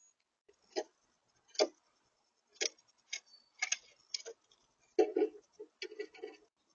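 A small bird pecking and shuffling at a feeder: sharp, irregular taps and clicks, spaced about a second apart at first and coming in a quick cluster near the end.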